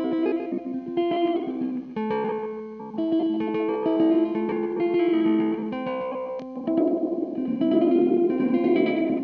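Electric guitar, a 1976 Gibson ES-335, played through a Red Panda Particle granular delay pedal: picked notes and chords carried along by the pedal's delay effect.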